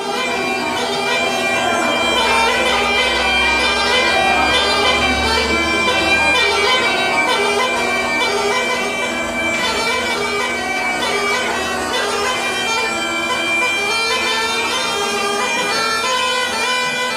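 Bulgarian gaidas, goatskin bagpipes, playing a folk melody together over a steady drone.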